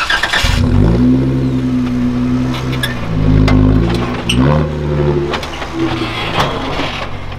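2013 Jeep Wrangler Unlimited Rubicon's 3.6-litre V6 engine revving up and down under load as the Jeep crawls over rocks. Scattered knocks and crunches of the tyres on rock run through it.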